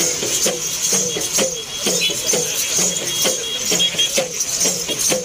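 Procession drumming: drums struck in a steady rhythm of about three strokes a second, with a continuous jingling of bells or shakers above them.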